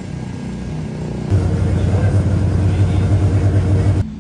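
Race car engines running on the track, with a steady low drone that gets much louder about a second in and stops abruptly near the end.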